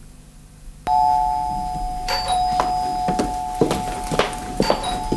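Electric doorbell buzzing without a break, starting suddenly about a second in as a steady two-note tone, with footsteps hurrying across the floor about twice a second.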